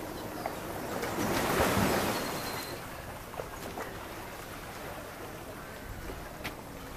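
Small sea waves washing in and splashing around a wooden pier. One wave swells loudest between about one and two and a half seconds in, then the water settles to a steadier wash.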